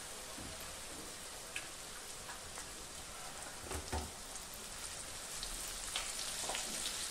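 Flour-coated sweet corn kernels deep-frying in hot oil: a steady sizzling hiss with occasional pops and crackles.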